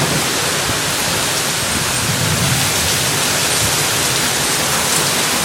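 Torrential rain pouring down in a steady, even rush.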